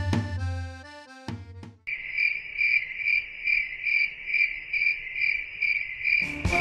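Crickets chirping, a stock sound effect: a steady high chirp pulsing about twice a second. It starts abruptly about two seconds in, just as a short music phrase ends, and cuts off sharply near the end.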